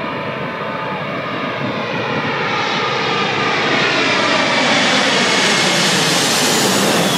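Boeing 747's four jet engines as the airliner passes low overhead on landing approach: a rushing roar with several whining tones, growing steadily louder as it comes over.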